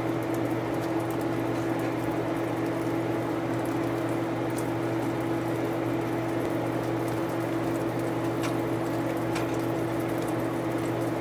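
A steady low hum with two constant tones, with a few faint clicks and scrapes of a spoon against a skillet and a pot as shrimp is scraped into pasta in cream sauce and stirred.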